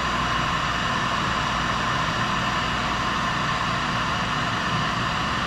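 Electric heat gun running steadily, its fan blowing hot air onto a solder-seal connector to shrink the sleeve and melt the solder ring; an even airy noise with a faint motor hum.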